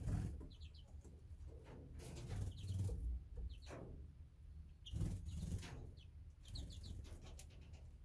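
Small aviary finches giving short, high chirps in little clusters of two or three notes, with several brief rustling bursts and a low rumble underneath.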